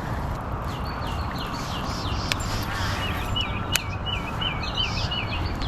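A songbird singing a series of repeated whistled notes, first slow downslurs, then a quicker run of hooked notes near the middle. Wind buffets the microphone as a steady low rumble, with a few sharp clicks.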